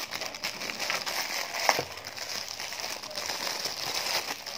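Clear plastic packaging bag crinkling as it is handled and opened to take out a squishy toy, with a sharper crackle about a second and a half in.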